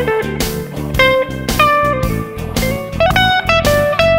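Background music: a bluesy electric guitar melody over a beat.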